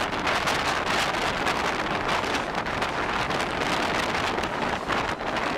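Steady rush of wind buffeting the microphone at the open door of a passenger coach running at speed, over the rumble of the coach's wheels on the rails.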